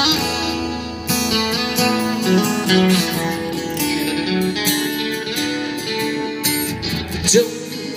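Two acoustic guitars playing an instrumental passage of a song: strummed chords under a line of changing notes, with no singing.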